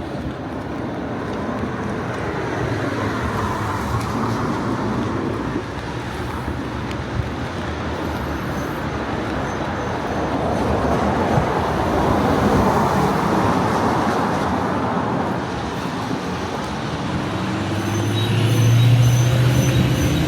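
Road traffic: vehicles passing one after another, swelling twice as they go by. Near the end a heavier vehicle's low engine hum comes in.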